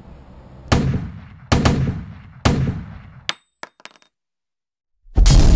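Sound-effect sting: three sharp gunshot-like bangs about three-quarters of a second apart, each dying away slowly, then a few quick metallic clicks with a brief high ring. After a second of dead silence, a loud crash like breaking glass starts near the end.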